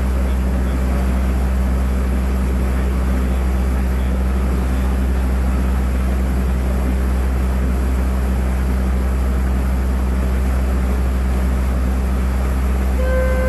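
Resort launch boat's engine droning steadily while under way. Near the end a horn sounds one held note.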